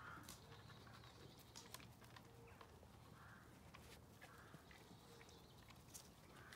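Near silence: faint ambience with a few faint, short bird calls a second or more apart and occasional soft clicks.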